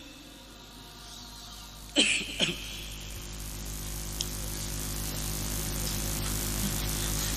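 Pause in the recitation: steady hum and hiss of a sound system that slowly grows louder, with two brief sharp sounds, falling in pitch, about two seconds in.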